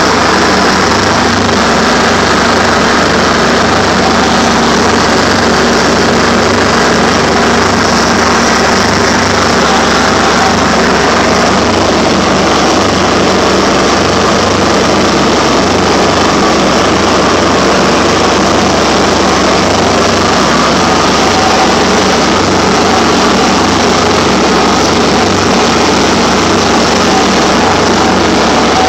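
2004 Mahindra 3510 compact tractor's diesel engine running steadily while it drives a 72-inch finishing mower, heard from the operator's seat.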